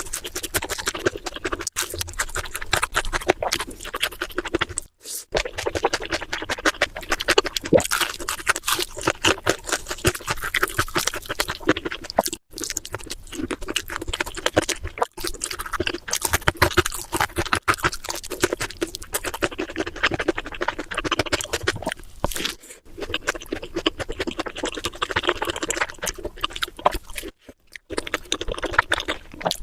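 Close-miked chewing and crunching of crispy fast food: a dense run of wet smacks and crackles with a few brief pauses.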